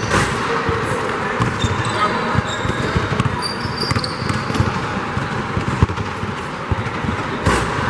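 A basketball being dribbled on a gym floor, with repeated thumps of the ball and players' footfalls and short sneaker squeaks.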